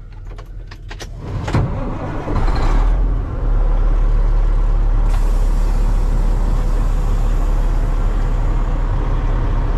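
Diesel semi-truck engine cranked over by the starter and catching after about three seconds, then running at a steady idle.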